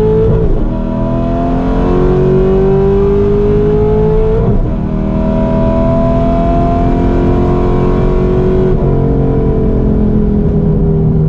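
Straight-piped, cammed 2009 Corvette C6's LS3 V8 at full throttle, heard from inside the cabin, pulling hard through the gears of its six-speed manual. The engine note climbs steadily in each gear, broken by quick upshifts near the start, about four and a half seconds in, and about nine seconds in.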